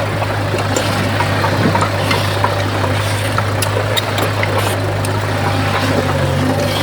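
Heavy diesel engine of earthmoving machinery running steadily with a constant low hum, with a few faint clicks and clinks over it.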